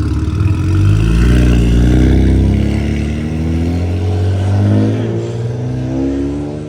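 Car engine accelerating, its pitch climbing over the first few seconds, then easing off and fading away near the end.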